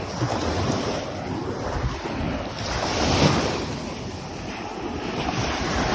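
Ocean surf washing up the shore, swelling loudest about halfway through and building again near the end, with wind buffeting the microphone.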